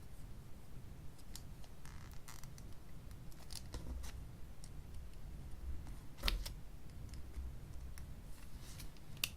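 Faint, scattered clicks and taps of a small plastic-and-metal mechanical pencil, a Rotring 300, being handled and turned over in the fingers, with a sharper click about six seconds in and another near the end.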